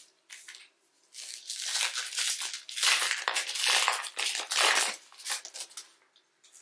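Plastic trading card pack wrapper crinkling and crumpling in the hands, a dense crackle lasting about four seconds and loudest past the middle.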